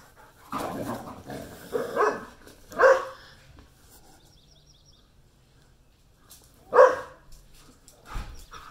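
Dogs play-fighting: a rough growl about half a second in, then loud barks around two and three seconds in and again near seven seconds.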